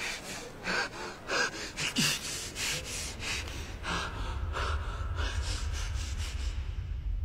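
A man breathing hard in short, ragged gasps, about two breaths a second, with a few brief voiced catches. A low rumble builds underneath from about halfway through.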